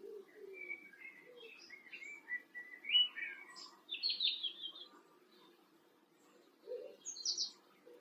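Garden songbirds singing: a run of warbled phrases, then a loud rapid trill about four seconds in and a few high notes near the end. Faint low cooing, typical of a wood pigeon, sits underneath at the start and again near the end.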